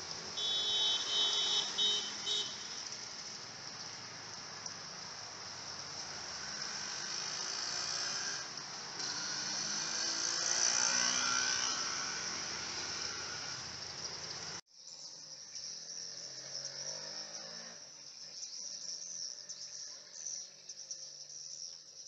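Dense, high-pitched twittering of a large flock of swiftlets circling in the air, going on steadily; it breaks off abruptly about two-thirds through and then resumes.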